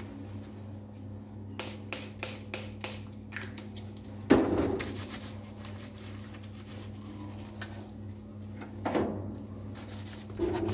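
Steady low hum of a biosafety cabinet's blower, with a quick run of light clicks about two seconds in and sharper knocks at about four and nine seconds as lab items are handled inside the cabinet.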